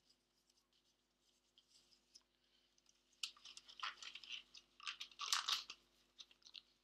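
Nitrile gloves being pulled onto the hands: a crinkly rustling with a few sharp clicks. It starts about three seconds in and is loudest around five seconds.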